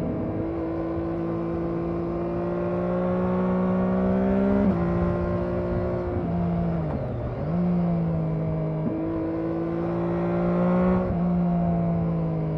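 Triumph Daytona 675R's inline three-cylinder engine under way, its pitch climbing slowly as it pulls. The pitch drops sharply about a third of the way in and again near the end, typical of gear changes. In between it sags briefly and recovers, then steps up.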